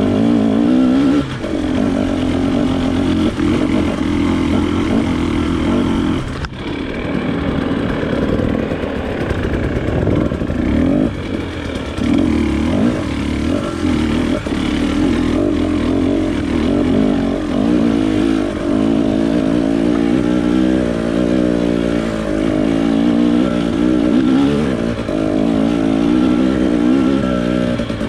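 Off-road motorcycle engine running under way, its pitch rising and falling with the throttle, easing off briefly about six seconds in.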